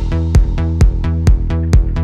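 Electronic dance music with a kick drum on every beat, a little over two beats a second, over a pulsing bass line.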